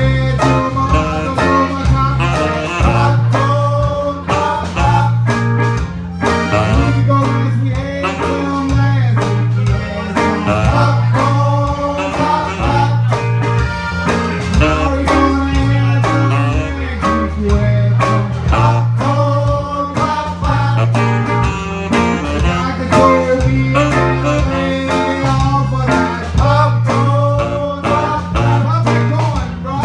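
Live band music led by electric guitar over a repeating bass line and a steady beat.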